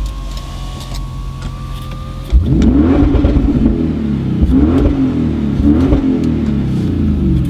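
Audi RS6 Performance's 4.0 TFSI twin-turbo V8 with Akrapovic exhaust, running steadily at first, then about two seconds in opening up into loud revving, its pitch rising and falling several times.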